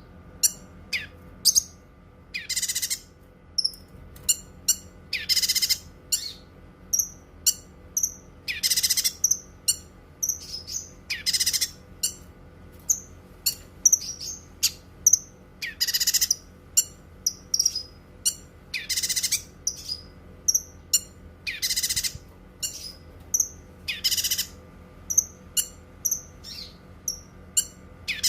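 Cucak kinoi singing: quick, high chirps and whistles, broken every two to three seconds by a loud, harsh buzzy call lasting about half a second.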